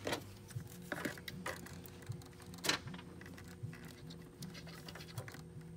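Scattered light clicks and ticks of plastic parts and hoses being handled in a car's engine bay, the sharpest about two and a half seconds in, over a low steady hum.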